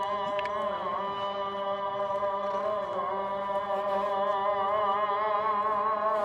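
A single voice chanting long, held notes that waver in ornamented turns, as in Islamic religious chanting.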